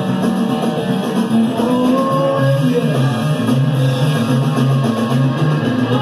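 Live rock band playing an instrumental passage of a blues-rock song: electric guitar over bass and drum kit, with a note sliding upward about two seconds in. Taped on cassette from two microphones at the mixing desk in a small club.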